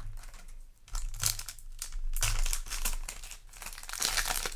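Crinkling and rustling of foil trading-card booster pack wrappers being handled, in irregular bursts starting about a second in.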